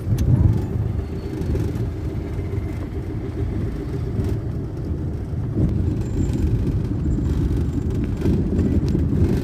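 Steady low rumble of engine and road noise heard from inside a moving car.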